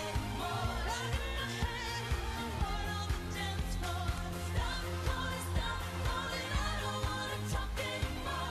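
Live pop dance music with a steady, pounding beat and singing.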